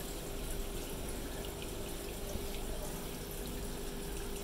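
Aquarium air-pump bubbler and filter running: a steady bubbling, trickling water sound with faint pops, over a steady low hum.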